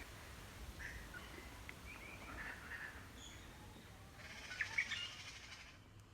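Birds chirping faintly in short, scattered calls, with a few brief chirps about a second in, midway, and a denser cluster near the end.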